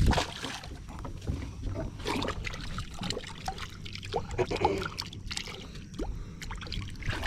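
Water lapping and sloshing against the hull of a small fishing boat, with scattered knocks and clicks.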